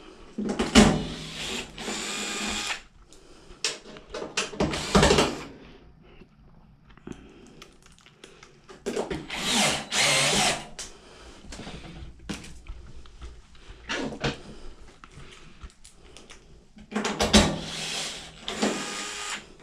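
A power drill driving screws in four runs of a second or two each, with quieter handling clatter between them.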